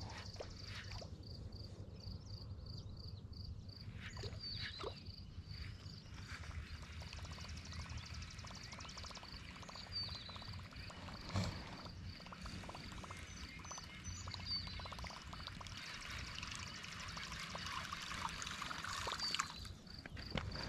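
Topwater Whopper Plopper lure gurgling and splashing across calm water as it is reeled in, from about six seconds in, louder in the last few seconds, then stopping. A steady high chirping repeats about three times a second.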